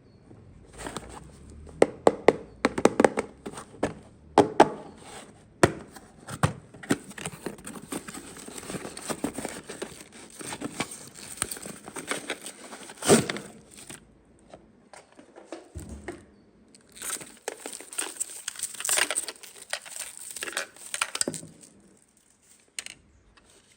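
Toy packaging being crinkled and torn open, in two long stretches of rustling with sharp clicks and snaps among them.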